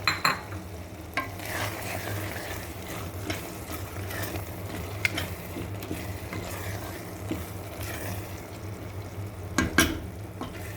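A spoon stirring and scraping in a cooking pot while the lentil soup base fries before the water goes in, with light sizzling. Sharp knocks of the spoon on the pot come now and then, the loudest a pair near the end.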